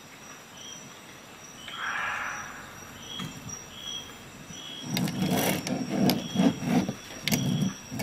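Stainless-steel Victorinox SwissTool multi-tools being handled and shifted on a desk. There is a soft rustle about two seconds in, then a run of clicks and low knocks in the second half as the tools are picked up and laid against each other.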